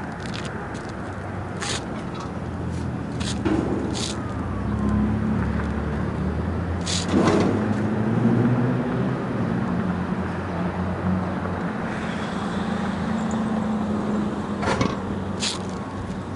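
A steady low engine hum, like a vehicle running nearby, with scattered sharp clicks and knocks over it.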